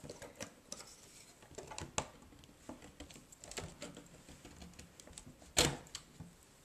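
A folding Domeo Loft Folio iPad case stand being flipped and clicked into place by hand: scattered faint clicks and taps, with one louder clack about five and a half seconds in.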